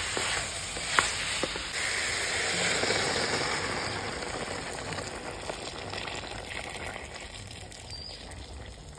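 Beef and chopped vegetables sizzling in a hot metal pan, with one sharp knock about a second in as a wooden spoon stirs. From about two seconds water is poured into the pan, hissing and bubbling on the hot metal, and the sizzle fades as the pan cools under the water.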